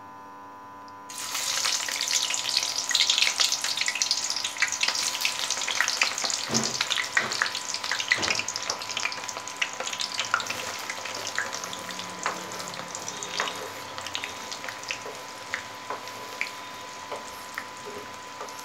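Sliced onions dropped into hot deep-frying oil in a steel kadai, setting off a sudden loud sizzle about a second in. The sizzle stays strong for several seconds, then gradually settles into a softer bubbling with scattered pops and crackles as the onions fry.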